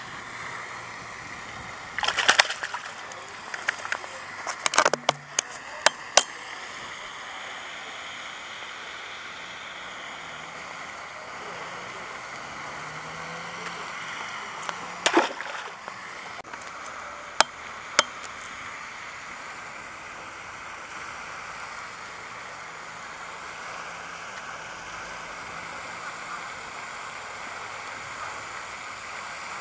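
Shallow lake water splashing in a few short bursts around a caught peacock bass, over a steady outdoor hiss.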